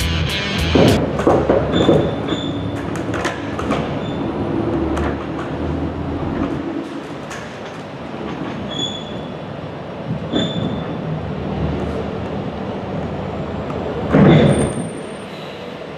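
Metal rattling and clanking with several short high squeals, as from an empty semi-trailer's metal body and floor; a louder rumble swells briefly about fourteen seconds in.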